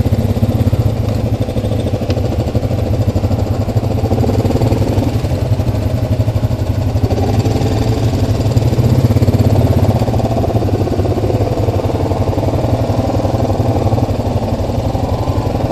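Single-cylinder four-stroke ATV engine running steadily at low revs as the quad creeps along, a little louder about eight to ten seconds in.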